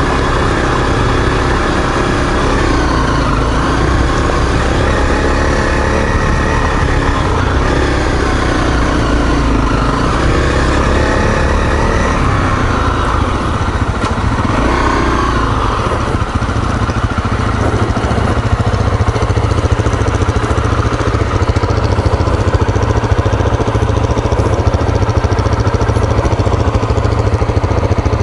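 Dual-sport motorcycle's single-cylinder four-stroke engine running on a trail ride, revs rising and falling through the first half, then settling to a steadier low note over constant hiss.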